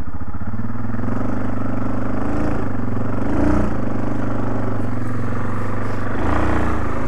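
Yamaha Kodiak ATV engine running at low throttle while the quad backs up, rising in pitch briefly about two and a half seconds in and again near the end.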